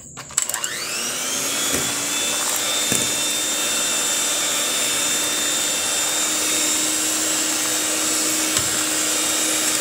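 Electric hand mixer switched on about half a second in, its whine rising as it spins up, then running steadily as its beaters work cake batter in a glass bowl. A few short knocks come from the beaters striking the bowl.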